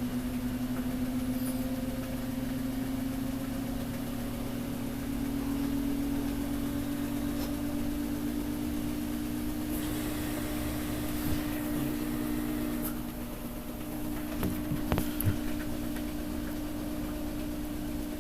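Samsung Grande washing machine running its rinse cycle: a steady motor hum that rises slowly in pitch, with a few short knocks about three-quarters of the way through.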